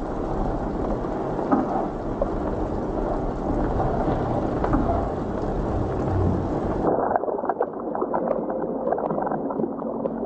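Muffled, low rumbling noise with faint crackles, the documentary's sound bed for the inside of the womb. Soft sustained music tones come in near the end.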